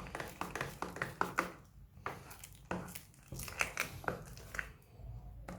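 Slime being squeezed and pressed by hand: an irregular run of sticky crackles and small clicks, with brief pauses.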